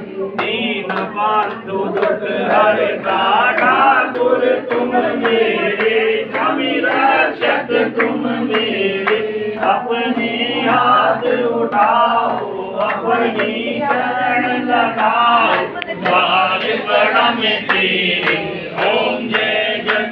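A group of people singing a Hindu aarti hymn together in chorus while the aarti lamp is waved.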